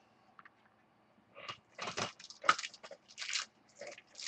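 Trading cards being handled: a series of short, crisp rustling scrapes starting about a second in, after a moment of near silence.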